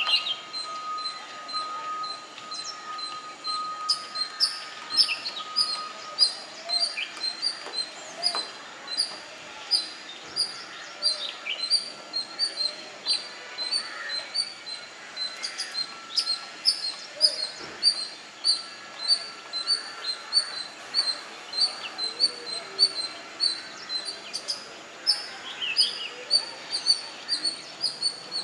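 Wild birds calling: a high chirp repeats steadily about twice a second, with occasional short falling calls from other birds.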